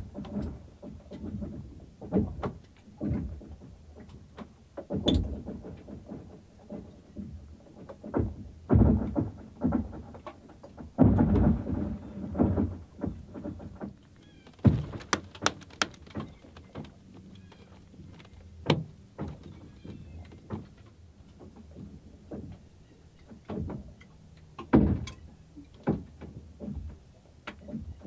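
Lake ice cracking and shifting during the spring break-up: irregular low thuds and booms, some a second apart and some several seconds apart, with a few sharp cracks.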